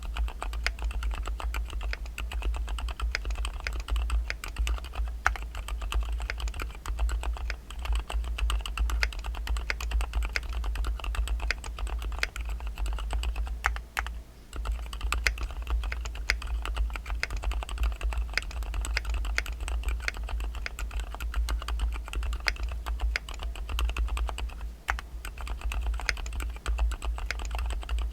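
Continuous fast typing on an Ajazz AC067 mechanical keyboard with Gateron Pro Black linear switches: a dense, uneven stream of key clacks with short pauses about halfway through and near the end, over a steady low hum.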